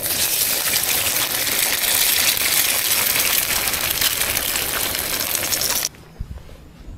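Eggs frying in hot fat in a cast-iron skillet: a loud, steady sizzle with fine spitting crackles as a freshly cracked egg goes in. It cuts off suddenly near the end.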